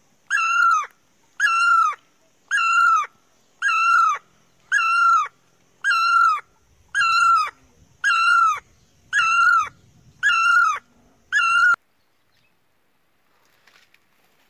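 A high-pitched animal call, repeated eleven times at an even pace of about once a second, each call about half a second long with a falling start. The calls stop about twelve seconds in.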